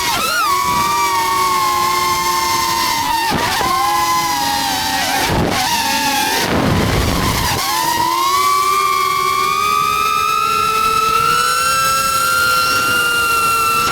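Deepspace Seeker 35 3.5-inch FPV quadcopter's motors and propellers whining in flight, the pitch sagging and climbing with the throttle. About halfway through, the whine drops sharply and swoops back up.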